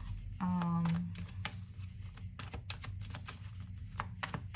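Tarot cards being shuffled and handled: an irregular run of short, sharp card snaps and clicks. A short hummed note about half a second in.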